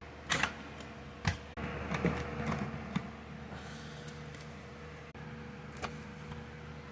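Handling noise from alarms being taken down off a mounting board: a few scattered sharp plastic clicks and knocks and a short stretch of rustling, over a steady low hum.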